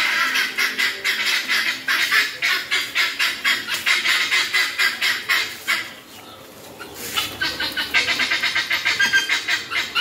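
A flock of helmeted guineafowl calling in rapid, repeated chatter, several calls a second, with a brief lull about six seconds in before it starts up again. It is the flock's agitated alarm calling at a person they find strange.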